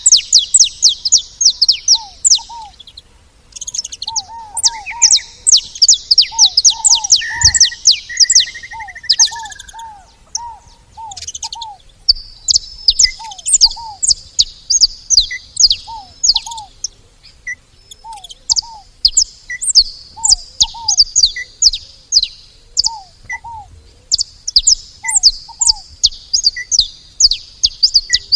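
Several saffron finches calling at a feeder: rapid runs of sharp, high chips in bursts, with a lower short call from another bird repeating every second or so.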